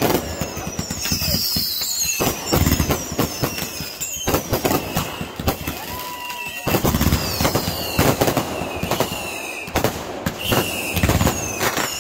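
Fireworks going off in a dense run of bangs and crackles, with many short whistles falling in pitch overlapping them. The barrage eases briefly around four to six seconds in, then picks up again.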